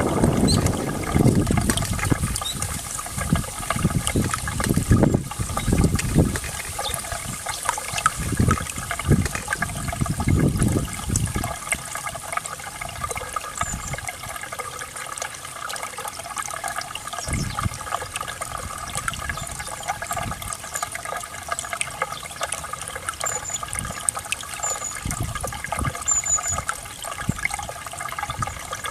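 Flowing water running and trickling steadily. Low gusts of wind on the microphone rumble over it during roughly the first twelve seconds, then die away.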